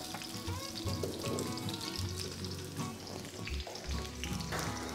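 Sliced onions frying in a little oil in a steel kadai, sizzling steadily as they are stirred.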